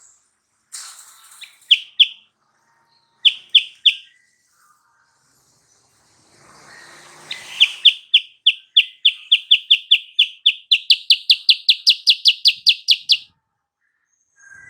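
Kutilang sutra (silver-eared mesia) singing: a pair of short clear whistled notes, then three more, then a long fast run of repeated notes at about four a second that steps up in pitch partway through.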